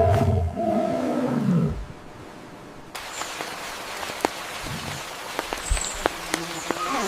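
An animal's loud call, falling in pitch, through about the first two seconds. After a sudden change a few seconds in, a steady hiss follows, with scattered sharp clicks and a few faint high chirps.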